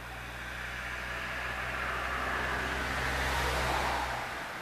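A car passing on the road: its tyre and engine noise swells to a peak about three and a half seconds in, dropping in pitch as it goes by, then fades. A low steady hum underneath cuts off near the end.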